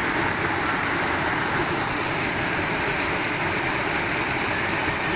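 Steady rushing of flowing water, like a waterfall or fast stream, as an even unbroken roar.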